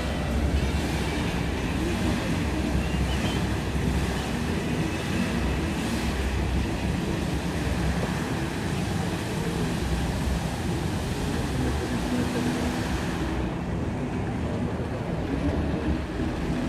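Bellagio fountain water jets spraying and splashing back into the lake, a steady rushing hiss under a low rumble of wind on the microphone. The hiss thins out about 13 seconds in as the jets drop lower.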